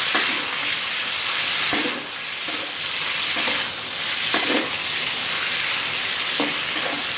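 Pork belly pieces sizzling in hot oil in an electric pan on medium heat, the fat rendering out. A metal spatula stirs them, scraping and knocking against the pan now and then.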